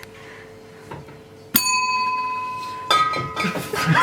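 A service bell struck about a second and a half in, ringing on in a clear, slowly fading tone, then struck again about three seconds in.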